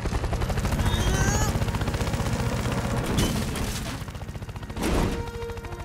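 Cartoon helicopter rotor sound effect: a rapid, even chopping pulse, with a whoosh about five seconds in.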